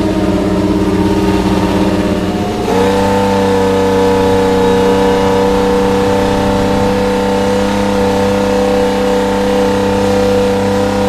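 Formula 1 car's turbocharged 1.6-litre V6 hybrid engine running at steady revs. It steps up in pitch about a third of the way in and then holds the higher note evenly.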